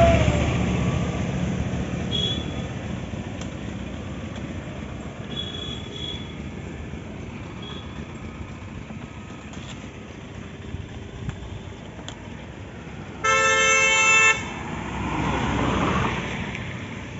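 A motor vehicle passes, fading over the first couple of seconds. About thirteen seconds in, a vehicle horn honks once for about a second, the loudest sound, and then another vehicle passes.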